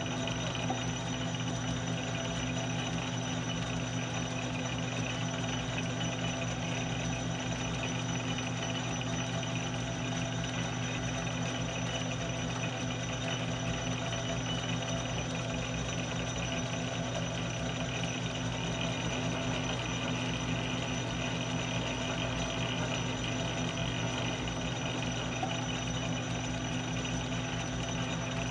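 Metal lathe running steadily under power with its spindle and gears humming during a single-point threading pass on steel bar stock.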